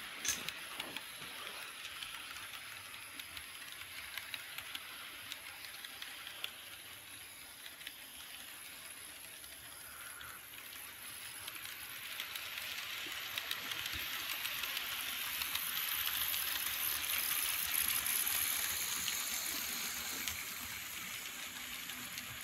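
Model steam train rolling along its track: a steady hissing rush with light clicks. It grows louder as the train comes closer, is loudest about three-quarters of the way through, then eases off.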